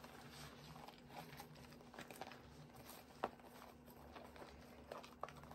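Near silence: room tone with a faint steady hum and a few soft clicks and taps, the sharpest a little past three seconds in, as from small items being handled.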